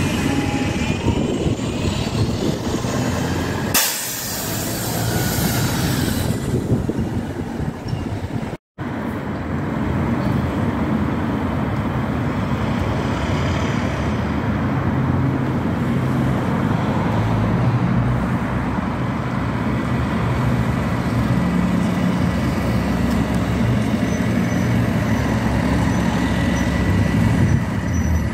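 Bus engines running as buses move through a bus station, with a sharp hiss of compressed air lasting about two seconds, about four seconds in. After a brief break, a steady low engine sound of buses running continues.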